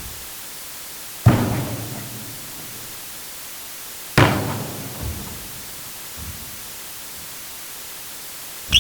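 Basketball striking a hard surface in an echoing gym: two single hits about three seconds apart, each a sharp thud with a hall echo trailing off.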